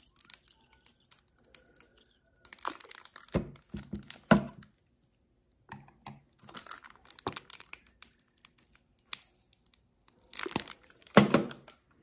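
Kitchen handling noise: a plastic squeeze bottle crinkling and a wooden spoon knocking and scraping against a plastic food-processor bowl. The sound comes in irregular bursts of clicks and crackles, with a few louder knocks about three to four seconds in and again near the end.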